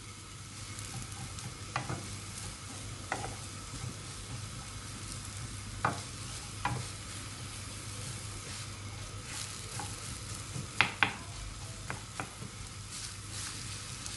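Sliced onions and peppers sizzling in hot oil in a frying pan as they are stirred with a wooden spoon, at the start of a sauté. A few sharp clacks from the stirring break in now and then, the loudest two close together near the end.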